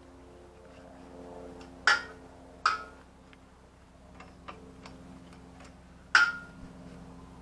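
Sharp metallic clinks of a tool and fixings being handled at a motorcycle fuel tank mount, with smaller ticks between them. There are three loud clinks, each with a short ring: one about two seconds in, a second one soon after, and a third near the end.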